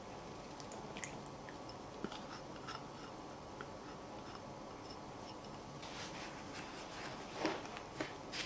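A few faint clicks, then from about six seconds in a silicone spatula stirring buttered biscuit crumbs in a glass bowl: a gritty scraping with small knocks against the glass.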